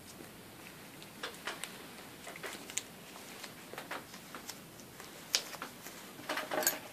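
Gloved hands handling a toe and wrapping a strip around it: irregular soft clicks and rustles. A short cluster of clinks comes near the end.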